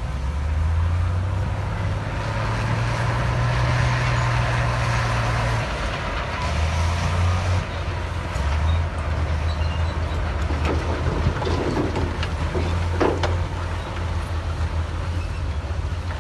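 Heavy diesel engine of earthmoving machinery running under load, its revs rising and then dropping back about five and a half seconds in, with a few sharp knocks in the second half.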